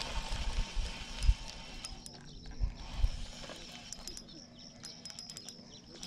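Spinning reel being cranked: a whirring hiss that breaks off briefly about two seconds in, then resumes and stops about four seconds in. A few low knocks from the rod being handled come through.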